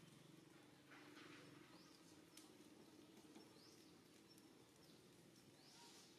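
Near silence: faint outdoor ambience with a low hum and a few faint, short, high rising chirps.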